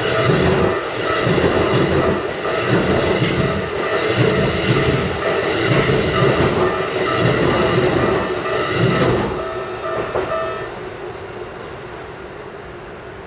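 Keikyu Line electric train running through a level crossing, its wheels clacking over the rail joints in regular groups as the cars pass. A level-crossing warning bell rings in a steady pulsing tone behind it. The train clears about nine seconds in and the bell stops a second or so later.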